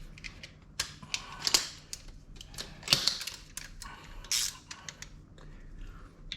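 Hand ratchet clicking in short, irregular strokes, tightening a brake caliper bolt by hand to check it is tight.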